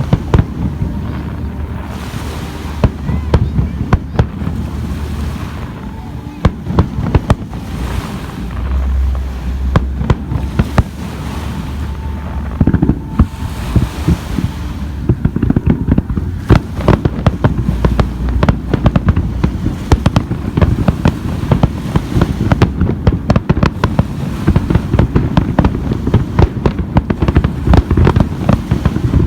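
Fireworks display going off: a fast, uneven run of sharp bangs and crackles that grows denser from about halfway through.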